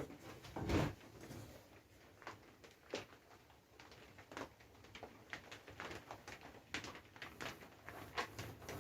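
Faint, scattered clicks and knocks of tools and materials being handled, with one louder knock just under a second in.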